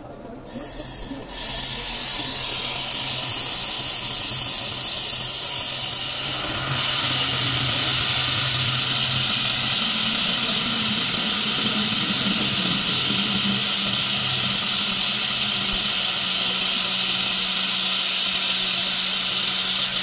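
Gas brazing torch hissing steadily while silver-brazing a knife puncture in a refrigerator's freezer plate to seal the leak. The hiss starts about a second in and grows fuller around six seconds in.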